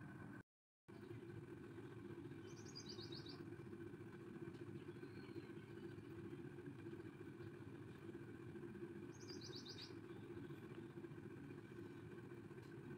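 Faint steady low background hum with a short, high bird-like chirp trill twice, about seven seconds apart. The two trills are identical in shape, as from a looped background recording. The sound cuts out completely for a moment about half a second in.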